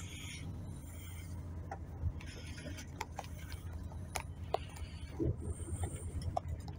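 Coach cabin noise while moving off at low speed: a steady low engine hum with scattered light clicks and rattles.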